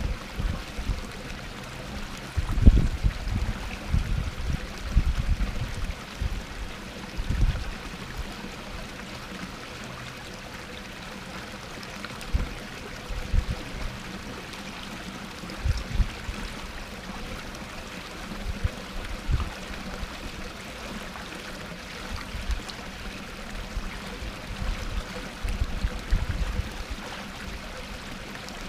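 Small garden waterfall splashing steadily into a pond, a continuous babble of falling water, with irregular low rumbles now and then.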